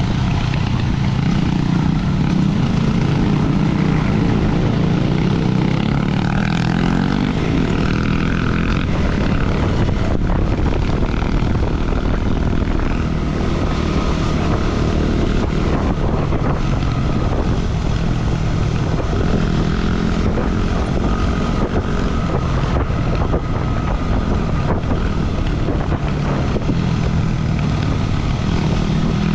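Single-cylinder adventure motorcycle engine running while riding, with steady wind noise on the microphone. The engine note shifts a little about six to nine seconds in.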